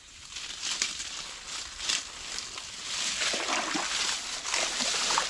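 Splashing and sloshing in shallow ditch water with crackling noise, a dense run of short splashes that grows louder about three seconds in.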